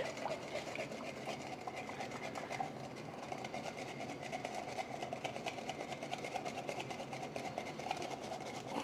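Metal spoon scraping round a fine metal sieve, pushing mushroom cream through the mesh in fast, steady strokes. This strains out small pieces before the cream goes into the siphon.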